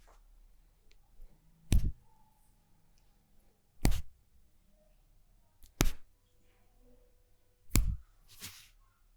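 Four loud, sharp slaps of hands on the body during a massage, evenly about two seconds apart, followed near the end by a softer brushing swish.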